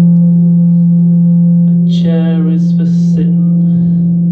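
A loud, steady low drone, one held tone with overtones, from a live experimental noise performance. About two seconds in, a short wavering vocal sound and some breathy hiss rise over it for about a second.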